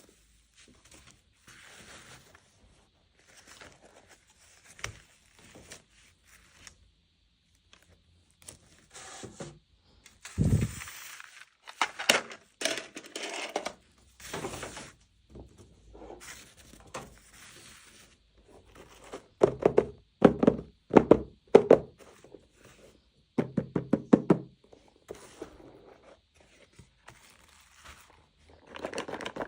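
Miniature plastic toys and their packaging being handled close to the microphone: soft rustling, scattered knocks and taps, a thump about ten seconds in, and runs of quick clicking taps in the second half.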